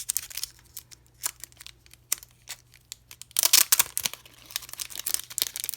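Packaging rustling and crinkling as a set of photo cards is handled and slid out of its snug pack, with scattered small clicks and a louder burst of rustling about three and a half seconds in.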